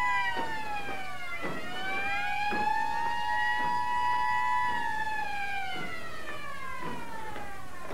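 Siren wailing: its pitch falls about a second in, rises again, holds, then falls slowly through the second half. A faint knock sounds about once a second.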